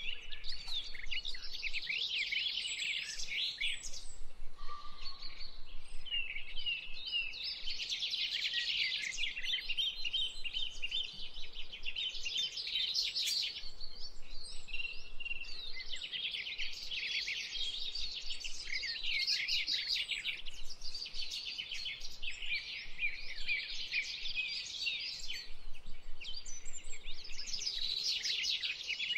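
Birdsong: a dense chorus of small birds chirping and twittering without pause, quick high notes coming in waves.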